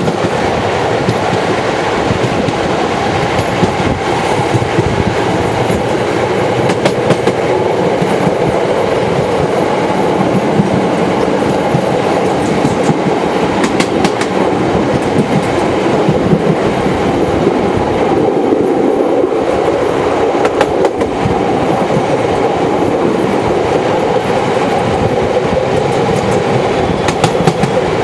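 Passenger train running along the track, heard from on board: a steady rumble of wheels on rails with a few sharp clicks as wheels pass over rail joints.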